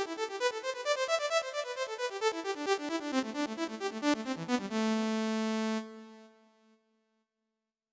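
Synthesizer voice on a Yamaha PSR-SX900 arranger keyboard playing a fast run of repeated short notes, about five or six a second. It ends on a held chord that cuts off about a second later and fades out, leaving silence for the last second or so.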